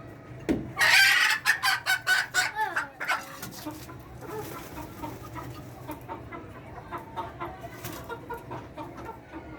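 Chickens calling: a loud run of rapid, repeated calls starting about half a second in and lasting about two and a half seconds, then softer, scattered clucking.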